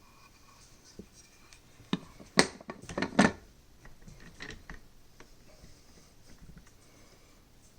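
Detachable box magazine of a Swiss K31 rifle being released and pulled out: a quick cluster of sharp metal clicks and clacks about two to three seconds in, with fainter handling taps afterwards.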